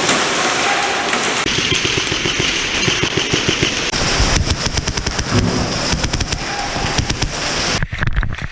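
Several airsoft rifles firing rapid full-auto bursts, overlapping one another; the firing cuts off suddenly near the end.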